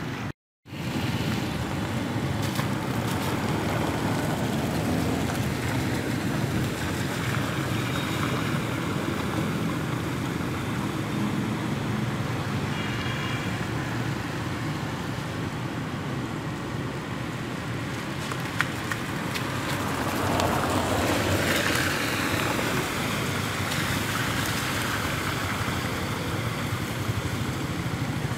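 Cars and motorbikes driving through a flooded street, their engines and tyres in shallow floodwater over a steady wash of traffic and wind noise. One vehicle passes louder about three-quarters of the way through. There is a brief cut to silence just after the start.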